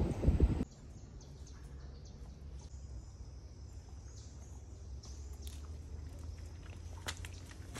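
Rainforest ambience: a steady low rumble with faint high-pitched animal calls, opening with a brief loud rumble that cuts off in the first second, and a few sharp clicks near the end.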